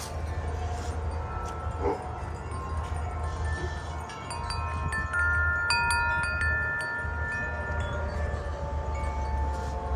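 Music of the Spheres tuned wind chimes ringing in gusty wind, with scattered long-ringing notes and a cluster of several quick strikes a little past the middle. A steady low wind rumble sits underneath.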